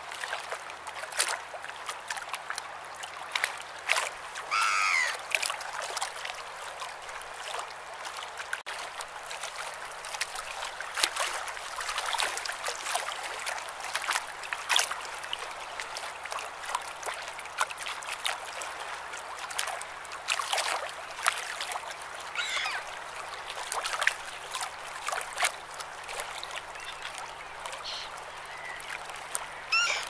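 Sea water lapping and splashing at the shore, full of small irregular splashes. A few gull calls come through: one about four to five seconds in, another a little past twenty-two seconds, and one near the end.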